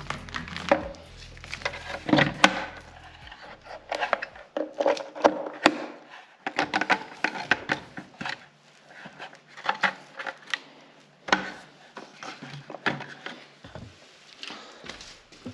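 A run of irregular clicks and knocks from hard objects being handled and set down, most likely the Parkside PASS 50 A1 cordless LED work light's plastic housing and stand.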